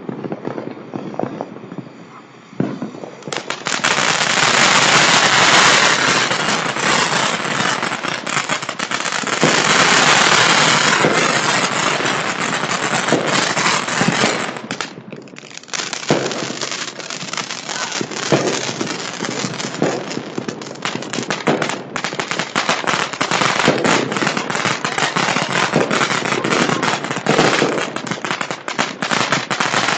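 Commercial fireworks going off in a dense, continuous barrage of crackling and popping, with a brief lull about fifteen seconds in before rapid bangs and crackles start again.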